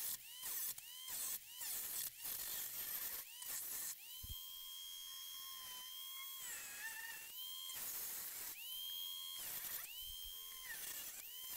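Harbor Freight angle grinder with a cutting wheel, cutting the sheet-metal cowl of a Jeep Cherokee XJ. Its high whine starts and stops in short bursts for the first few seconds, then runs in longer steady stretches, dipping briefly in pitch around the middle.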